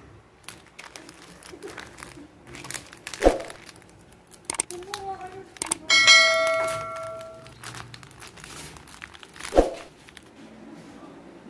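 Subscribe-button animation sound effects: a bright bell ding about six seconds in that rings on for about a second and a half, with a sharp click about three seconds in and another near the end, over light crinkling and handling noise.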